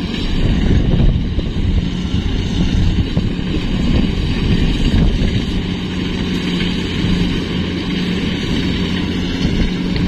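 Kubota DC-70 Plus rice combine harvester running steadily as it harvests, a low engine drone with a steady hum.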